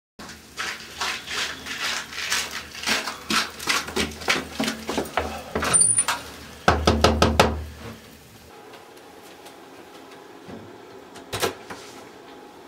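Knocking on a front door: a long run of raps and thuds, then a louder burst of about five quick knocks about seven seconds in. A single sharp click near the end as the door is unlocked.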